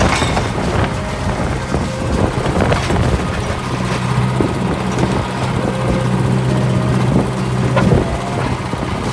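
Detroit diesel engine of an old Galion road grader running steadily under load, with several sharp clanks and knocks, the loudest near the end.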